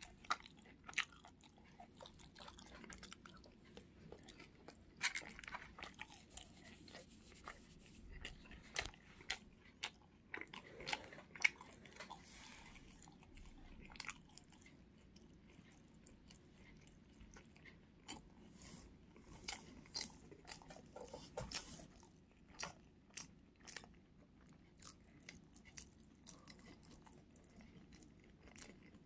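Close-up crunching and chewing of crispy glazed fried chicken, a string of irregular sharp crackles from bites into the crust.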